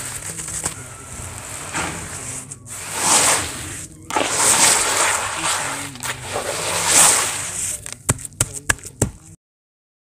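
Wet sand crumbling and falling into water in a bucket, then a hand sweeping and raking through the wet sand in several swells of gritty, crackly noise. A few sharp clicks come near the end, then it cuts off to silence.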